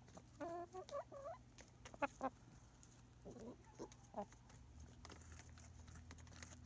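Pullets clucking in short, soft calls: a run of them in the first second and a half, two sharper ones about two seconds in, and a few more around three to four seconds, while they peck food from a hand.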